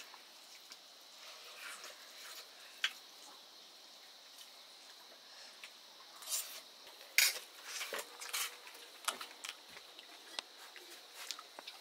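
Kitchen sounds of dishes and utensils: a scatter of light clinks and scrapes, the loudest about seven seconds in.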